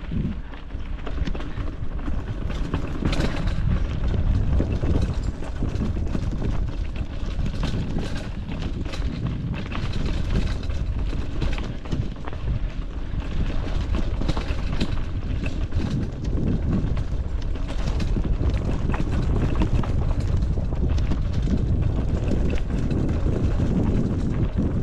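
Wind buffeting a GoPro microphone during a fast bicycle descent on a rough trail. The bike has no suspension, so the frame and parts rattle with constant irregular clicks and knocks over the bumps, and the tyres rumble on the dirt.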